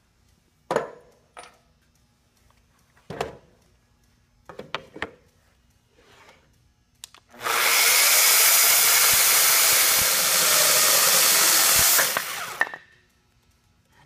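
Corded Makita electric chainsaw, guided on a sliding mill, cutting through a timber beam. It starts abruptly about halfway through, runs steadily for about five seconds, then cuts off and winds down. A few scattered knocks come before it.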